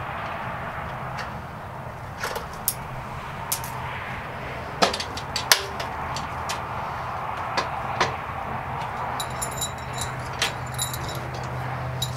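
Scattered clicks, knocks and light metallic clinks as the metal tub and parts of a Yardbird chicken plucker are handled during unpacking, with a couple of sharper knocks near the middle.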